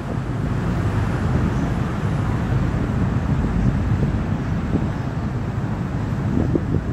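Steady low rumble of a sightseeing boat under way on a river, its engine and passing water mixed with wind buffeting the microphone, in gusts that grow near the end.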